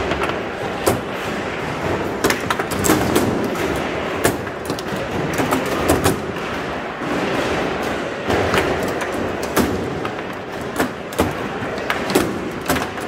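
Foosball being played hard: irregular sharp clacks and knocks of the ball striking the plastic players and the table walls and of the rods slamming, sometimes in quick clusters, over the steady din of a busy hall.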